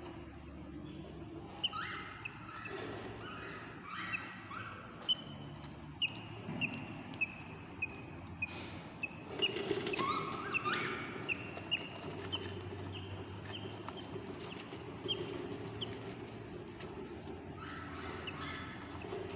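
Budgerigar nestlings in a nest box calling: a run of short high chirps, a little under two a second, mixed with lower rasping calls in groups near the start, in the middle and near the end. A steady low hum runs underneath.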